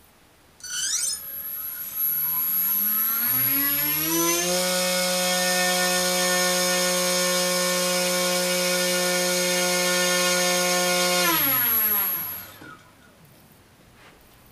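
RaceStar BR1811 2000KV brushless outrunner motor spinning a small propeller under an ESC: a short chirp as it starts about a second in, then a whine that rises in pitch over a couple of seconds, holds steady for about seven seconds, and winds down near the end as the throttle is cut.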